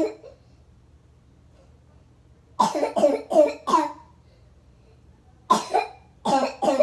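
A person in a coughing fit: a run of quick coughs about two and a half seconds in, a pair around five and a half seconds, then another run of coughs near the end.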